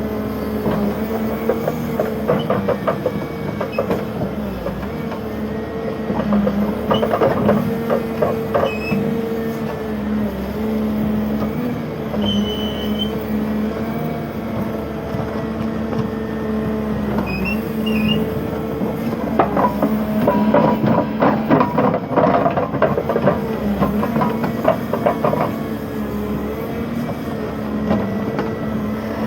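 A heavy machine's engine running steadily, with spells of rapid cracking and clattering about two seconds in, around seven to nine seconds, and again for several seconds past the middle.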